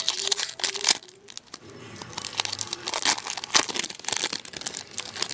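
Foil wrapper of an Upper Deck hockey card pack being torn open and crinkled: a burst of crackling at the start, then more crinkling from about two seconds in.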